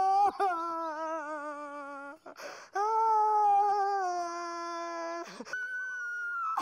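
A woman wailing in long, held, wavering notes: two drawn-out wails broken by a sharp breath about two seconds in, then a thinner, higher cry near the end.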